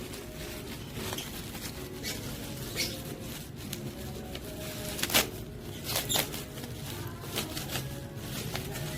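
Scattered light clicks and rustling, with a sharper click about five seconds in and a few more around six seconds, over a faint steady hum.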